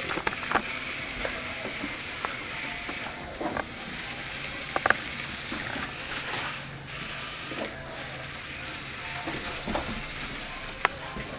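Small remote-control toy car's electric motor and gears whirring as it drives, cutting out briefly a few times, with a few sharp clicks.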